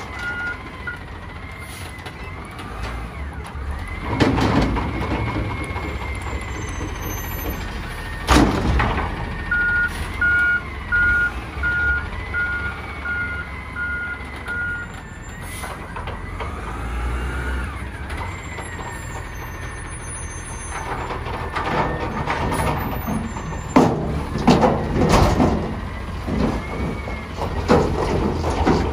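Peterbilt 320 front-loader garbage truck with an Amrep body at work. The engine revs and falls back to drive the hydraulic lift arms, with a whine that rises and falls in pitch. Its backup alarm beeps at the start and again for about five seconds in the middle, and loud metal bangs and clangs of steel dumpsters being handled come about a third of the way in and again, repeatedly, near the end.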